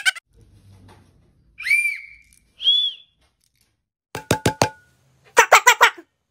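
Two short whistle notes, each rising and then falling in pitch, followed a little later by a few sharp clicks and a brief rapid, buzzy rattle.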